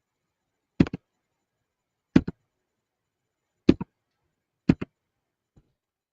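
Sharp clicks in four quick groups of two or three, roughly a second or so apart, followed by one faint click.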